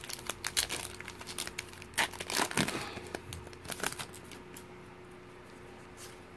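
Foil wrapper of a Pokémon booster pack being torn open and crinkled as the cards are pulled out: dense crackling rustle, loudest two to four seconds in, stopping about four and a half seconds in.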